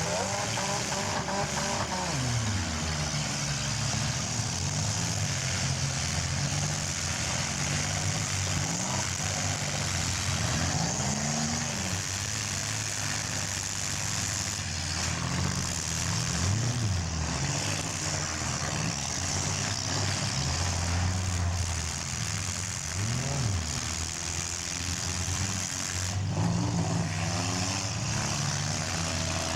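Small-car demolition derby engines revving and running, several at once, their pitch rising and falling again and again as the cars accelerate and back off.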